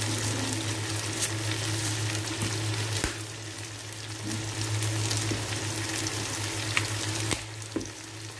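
Whole shrimp sizzling in hot oil with garlic and onion in a nonstick pan, a steady frying hiss with a few sharp pops, over a steady low hum.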